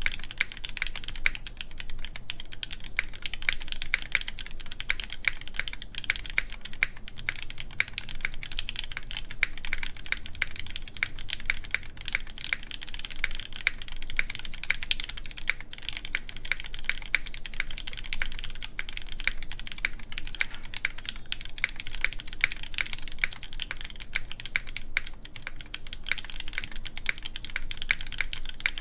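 Steady, fast typing on an iNN Studio Parabolica60 mechanical keyboard in tadpole pin mount: lubed Gateron Red Ink linear switches on an aluminium full plate under GMK Pristine keycaps, a dense stream of keystrokes with an occasional louder stroke.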